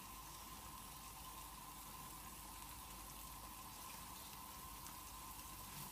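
Faint, steady simmering of a cream sauce coming to the boil in a frying pan on a gas burner, with a thin steady whine behind it.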